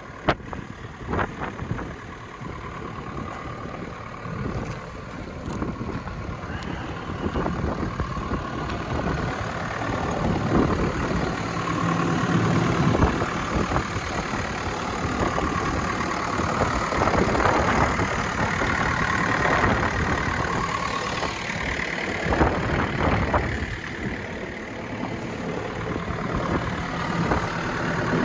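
Diesel engine of a JCB 8085 ZTS mini excavator running, growing louder over the first half and then holding steady.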